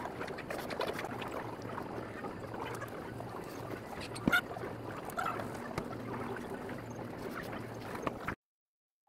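Someone eating cup noodles with wooden chopsticks: scattered light clicks and slurping over a steady room hum, with one sharper click about four seconds in. The sound cuts off suddenly near the end.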